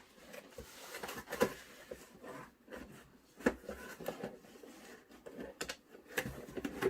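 Packaging being handled and unwrapped: rustling and crinkling with scattered short clicks and knocks.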